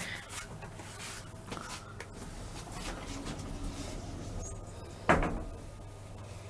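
Low steady hum of a Tecno passenger elevator with a few faint clicks, and one loud sharp knock about five seconds in.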